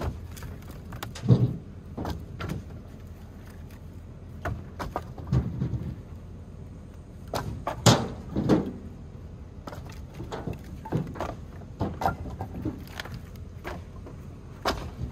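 Split firewood knocking and clattering as pieces are handled and stacked onto a woodpile: irregular wooden thunks, the loudest about a second and a half in and again near eight seconds, over a steady low rumble.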